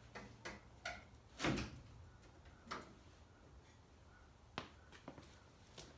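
Scattered, irregular clicks and knocks of hand work on a car's body metal around the cowl and windshield base, with one louder knock about one and a half seconds in.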